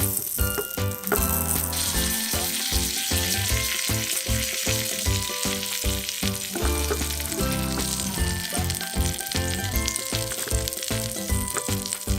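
Food sizzling as it fries in a tiny miniature-kitchen pan, the hiss growing stronger about two seconds in. Background music with a steady beat plays over it.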